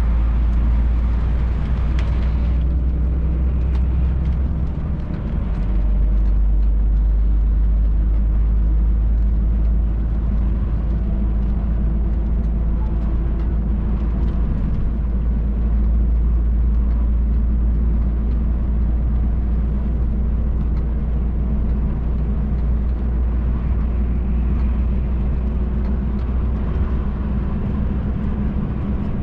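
MAN TGX truck's diesel engine and road noise heard from inside the cab while driving: a steady low drone, with a brief dip about five seconds in.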